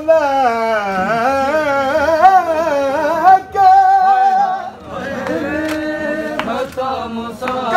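A man's voice singing a noha, a Shia lament, in long drawn-out lines that waver up and down in pitch, with a steadily held note about halfway through.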